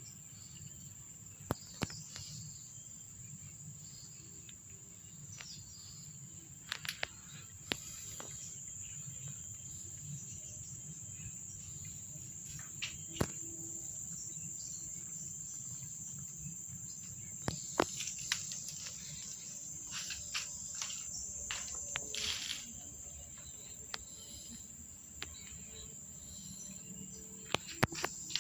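Insects chirring in a steady, high-pitched drone, with a dozen or so short sharp clicks scattered through it.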